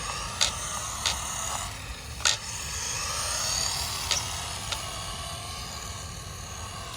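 Traxxas Mini E-Revo VXL RC truck driving: its brushless electric motor whines high, rising and falling with the throttle, over tyre noise on concrete. There are a few sharp clicks or knocks.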